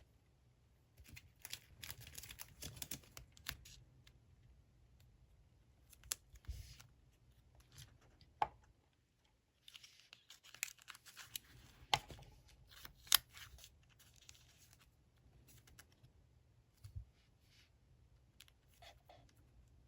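Paper and stationery being handled at a desk: bursts of paper rustling and tearing or cutting, with sharp clicks and taps in between.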